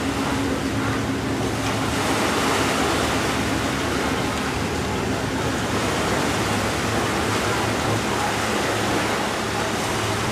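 Steady beach ambience: an even wash of noise from the open air and shallow water, with a faint low hum underneath.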